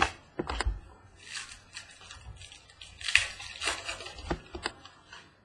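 Trading cards being handled and flipped through, with rustling and sharp light clicks. There is a loud click at the very start and another just past four seconds.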